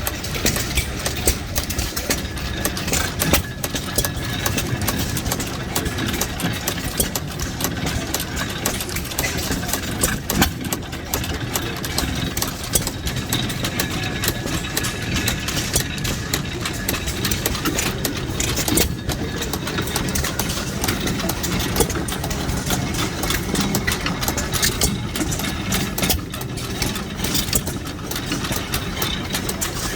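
Antique hit-and-miss stationary gas engines running, their firing giving a continuous, irregular stream of knocks.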